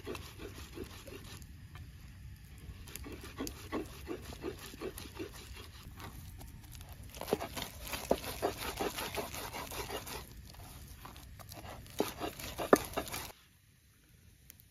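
Hands kneading and pressing a crumbly dough in a bowl: a run of soft squishing and scraping strokes, a few sharper knocks near the end, then the sound cuts off suddenly.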